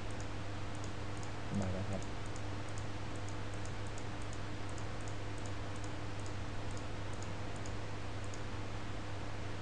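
Computer mouse button clicking at an irregular pace, about one to three clicks a second, as points are set for a freehand selection outline, over a steady electrical hum. A brief low murmur comes about one and a half seconds in.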